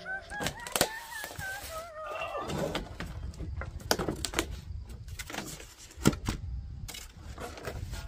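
Heavy steel pallet fork frame knocking and clunking as it is tipped and shifted in its cardboard shipping box, a string of irregular knocks with the loudest about a second in and about six seconds in. During the first two seconds or so there is also a wavering high-pitched sound.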